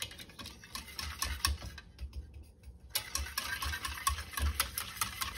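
Wire whisk stirring milk and cornstarch in a stainless steel saucepan, its wires ticking against the pan in quick repeated strokes, with a short pause about two seconds in.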